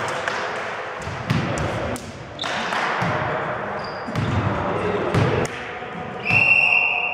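Volleyball referee's whistle, a single blast about six seconds in that authorises the serve. Before it, scattered ball thumps and players' voices echo in the sports hall.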